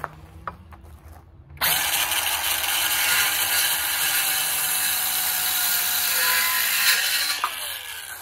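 A Ryobi 18V 5-1/2-inch cordless circular saw starts up about a second and a half in and cuts through a 2x4, then spins down with a falling tone near the end; a few light knocks of handling come before it. The saw runs with a rattle, which the owner puts down to a loose bearing or a spindle that needs greasing.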